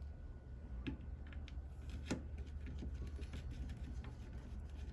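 Faint scattered clicks and ticks of a small screw being run into a motorcycle carburetor's diaphragm top cover, the clearest about one and two seconds in, over a low steady hum.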